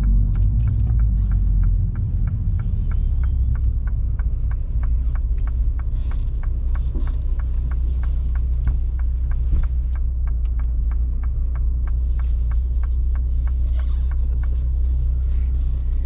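Steady low rumble of a car's engine and drivetrain heard from inside the cabin, with a light, even ticking about three times a second.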